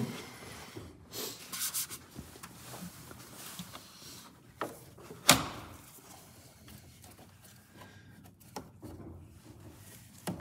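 Hands handling and refitting engine-bay trim parts: scattered light knocks, rubbing and clicks, with one sharp loud click about five seconds in.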